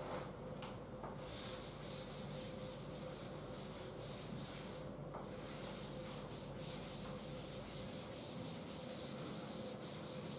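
Blackboard duster rubbing chalk off a chalkboard in repeated quick back-and-forth strokes.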